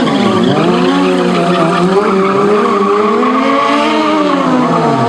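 Motorcycle engine revving up and down over and over, its pitch dipping and climbing several times, over a steady rushing noise.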